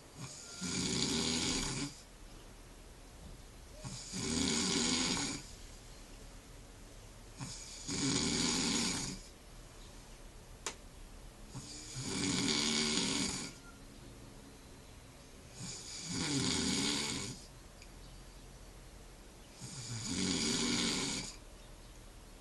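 Snoring in a steady rhythm: six long snores about four seconds apart, each lasting a little over a second. A single sharp click falls about halfway through.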